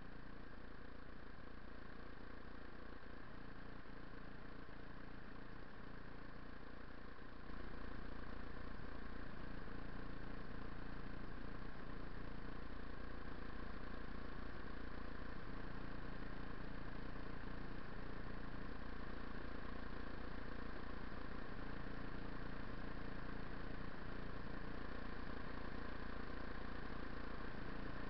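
Buell XB9SX's air-cooled V-twin idling steadily with the bike stopped, picked up by a camera on the dash; it gets a little louder about seven seconds in.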